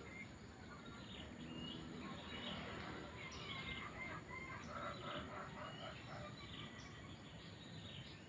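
Birds chirping in many short scattered calls, chickens among them, over a steady low background noise.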